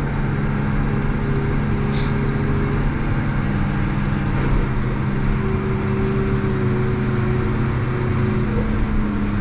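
Farm tractor's diesel engine running at a steady speed under load, heard from inside the cab: a constant low drone with a fainter whine that comes and goes.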